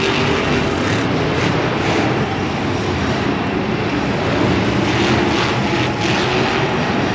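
Monster truck's supercharged V8 engine running loudly and steadily.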